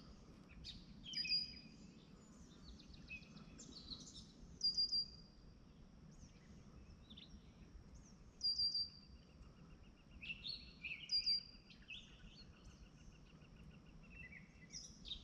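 Birds chirping: short high calls repeating every few seconds, with a faint steady outdoor background underneath.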